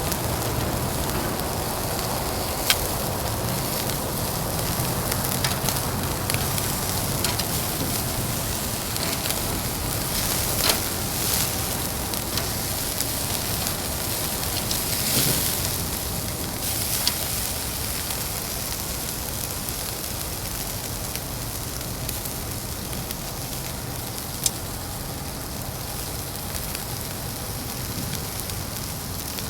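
Fire burning in a Uniflame Fire Grill fire pit: a steady hiss with a few sharp pops.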